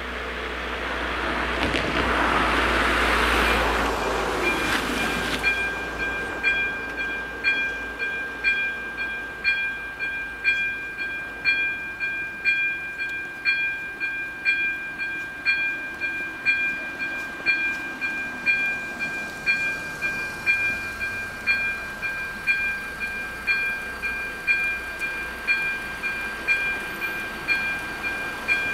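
A car drives past in the first few seconds. Then, about five seconds in, the AŽD 97 level-crossing warning starts: an electronic bell striking about once a second over a steady high tone, the signal that a train is approaching.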